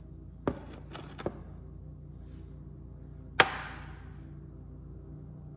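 A few light metal clicks, then one sharp metallic clink with a short ringing tail about three and a half seconds in: a washer dropping into the oil drain pan during a snowmobile oil change.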